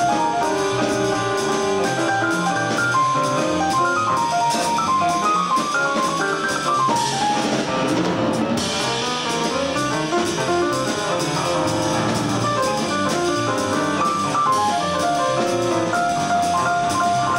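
Jazz piano trio playing a fast swing blues: piano running quick lines over bass and drums, with the drummer keeping time on the cymbals. A cymbal crash rings from about seven seconds in and is cut short a second and a half later.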